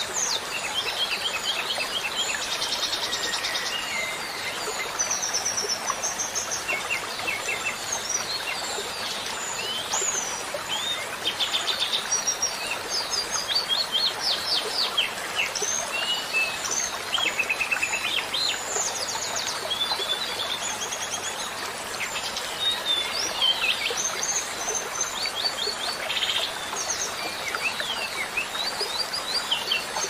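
A dense chorus of many small songbirds chirping and trilling, overlapping without pause, over a steady hiss of running water.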